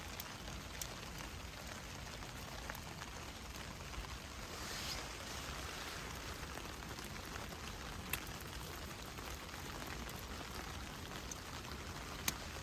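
Steady rain falling, with a few sharp single drops tapping now and then.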